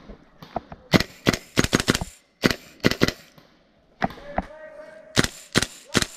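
Airsoft guns firing sharp shots in three quick strings: several shots in a row about a second in, a few more around two and a half to three seconds, and another string near the end.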